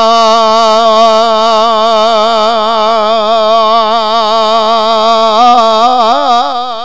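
A man's voice holding one long sung note at the end of a line of Punjabi devotional verse. It is steady at first, then wavers in a widening vibrato, and breaks off at the very end.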